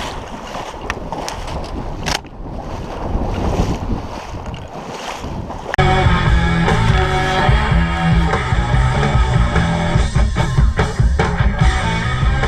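Wind buffeting the microphone in the open for about six seconds, with a sharp knock about two seconds in; then background music cuts in abruptly and carries on.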